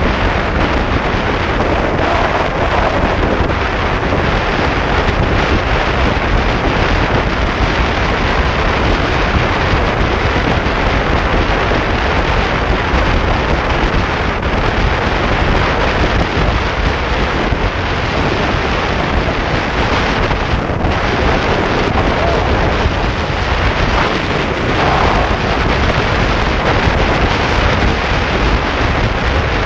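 Steady, loud rushing wind noise battering a GoPro Hero4 Session's microphone on a motorcycle at highway speed; the wind drowns out any engine sound.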